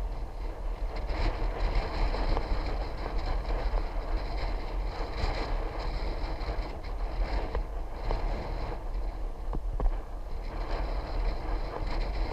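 Wind buffeting the microphone with steady road and tyre noise while riding a bicycle, an even rushing with a deep rumble that never lets up.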